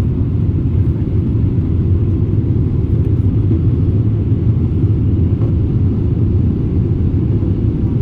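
Airliner cabin noise during the approach to landing: a steady low rumble of engines and airflow heard from inside the cabin.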